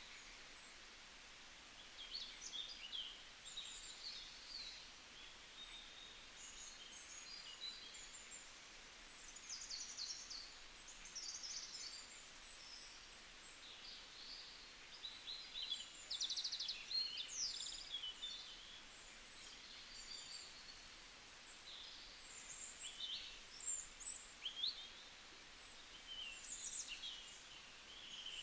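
Several small songbirds chirping and twittering in short, quick calls, overlapping and scattered throughout, with a few fast trills, over a faint steady hiss of forest ambience.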